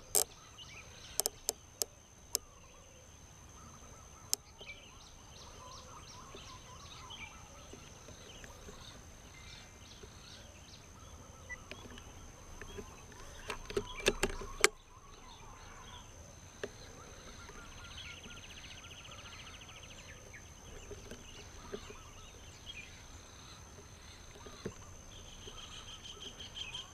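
Faint outdoor ambience with a steady high-pitched tone and a few bird calls in the second half. A few sharp clicks of the Swampdeer HD Pro riflescope's elevation turret being dialled come in the first two seconds, and a cluster of clicks and knocks from handling the rifle comes about midway, ending in one sharp knock.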